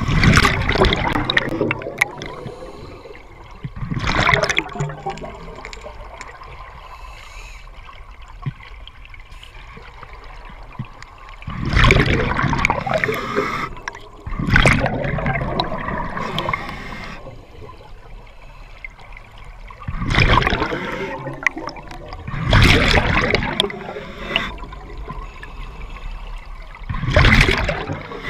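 A scuba diver's exhaled breath bursting from the regulator as bubbles, recorded underwater: about seven rushes of bubbles a few seconds apart, with a longer pause between them about a quarter of the way through.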